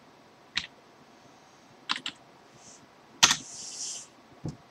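A few scattered computer keyboard key presses and clicks, the loudest just past the middle, followed right after it by a short breathy hiss of a puff on a tobacco pipe.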